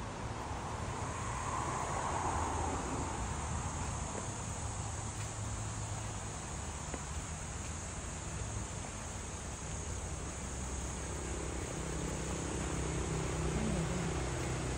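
Steady high-pitched insect drone over a low rumble, with a faint hum coming in near the end.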